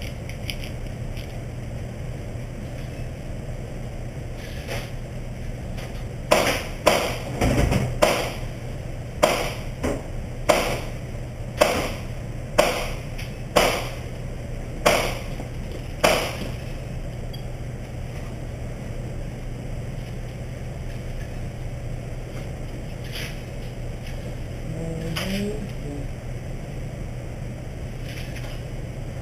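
About a dozen gunshots at an indoor shooting range, fired singly at roughly one per second over about ten seconds, over a steady low hum.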